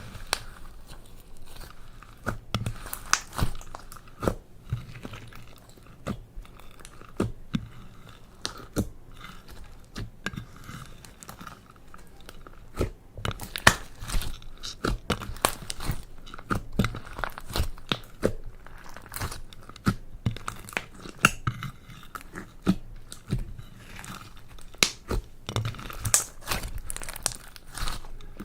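Slime mixed with eyeshadow, makeup, glitter and toy parts, squished and kneaded by hand. It gives off irregular sticky clicks, pops and crackles.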